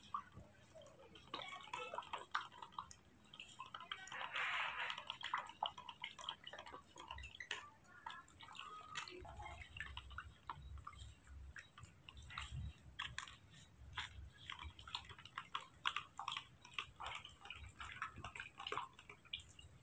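Faint light clicks and taps of a spoon stirring orange juice and honey in a plastic cup, then, from about nine seconds in, soft smacking and sucking as a baby monkey sucks on its fingers, over a faint low rumble.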